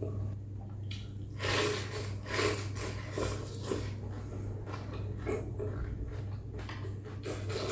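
A person eating noodle soup: several short wet slurps of bún mắm noodles and broth with chewing between them, over a steady low hum.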